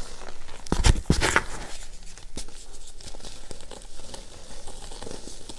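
Reformed gym chalk being crushed and crumbled between bare hands. There are a few loud crunches about a second in, then softer crackling as the crumbs and powder sift through the fingers.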